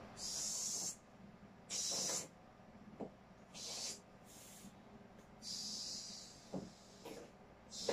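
Packing tape on a cardboard shipping box being slit open with a small blade: a series of short hissing strokes, each under a second, with a couple of faint knocks between them.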